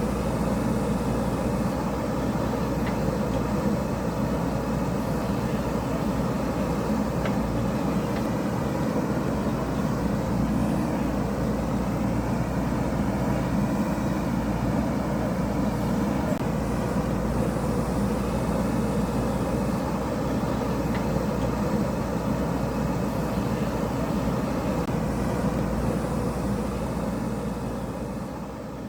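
JCB backhoe loader's diesel engine running steadily under working load, fading out near the end.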